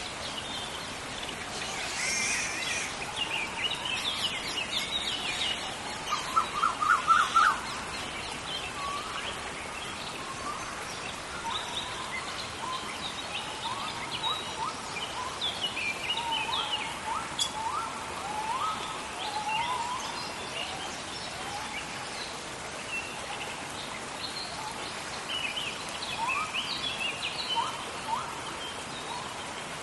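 Steady rain hiss in a tropical rainforest with many birds calling over it: short chirps and rising whistled notes throughout. A loud quick run of repeated calls comes about seven seconds in.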